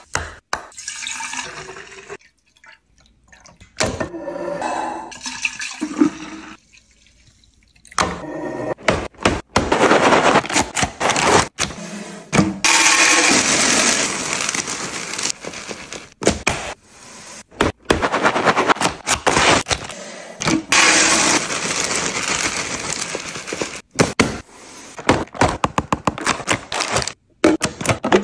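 A run of kitchen restocking sounds: liquid poured into a plastic juice bottle, small hard round pieces poured from a bag into a clear plastic canister with a dense rattle, and sharp clicks from plastic container lids.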